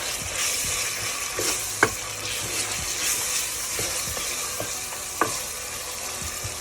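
Onions and ginger-garlic paste sizzling in hot oil in a pressure cooker while being stirred, a steady frying hiss with a couple of sharp knocks of the utensil against the pot.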